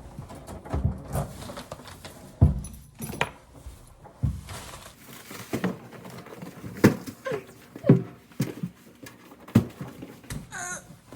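Irregular sharp knocks, taps and clicks with a few short squeaky sounds in between.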